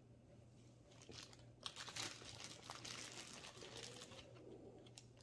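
Faint crinkling and rustling of a small plastic blind bag being handled as figures are taken out of it, starting about a second in and dying away near the end.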